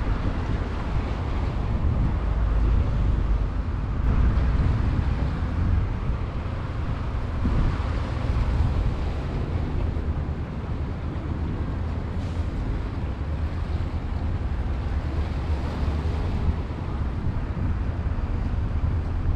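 Steady low rumble of wind buffeting an outdoor microphone, with a hiss above it that swells and eases slightly.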